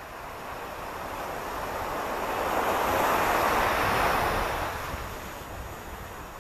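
Ocean surf on a sandy beach: a wave breaks and washes up the shore, swelling to its loudest about halfway through and then falling away, with a low wind rumble on the microphone underneath.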